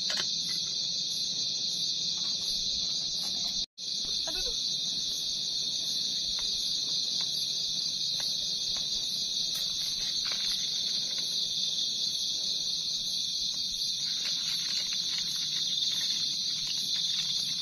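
Night insects, crickets, chirring in a loud, steady, high-pitched chorus, with faint clinks of camp cookware handled now and then. The sound drops out for a moment about four seconds in.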